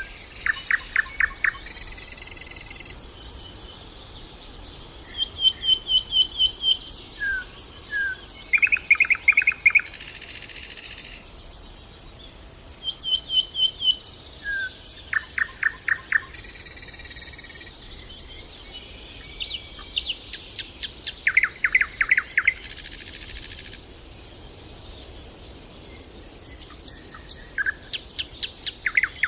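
Nightingale singing: short phrases every few seconds, each a rapid run of repeated notes and trills, separated by brief pauses.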